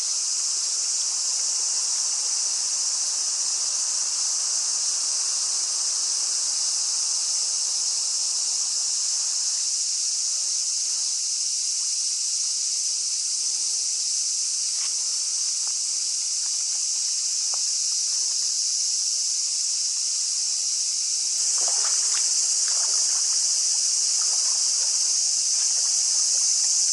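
Chorus of cicadas singing steadily as one continuous high-pitched hiss, growing a little louder about three-quarters of the way in.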